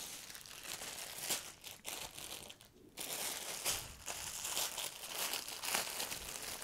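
Plastic packaging crinkling and rustling as a baby garment is unwrapped and unfolded by hand, in irregular rustles with a short pause about three seconds in.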